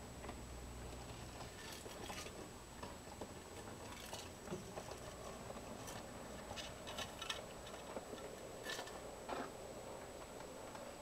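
Model train, a diesel locomotive pulling a log flatcar, running along the layout track: a faint low motor hum with irregular light clicks and ticks as the wheels pass over rail joints and points.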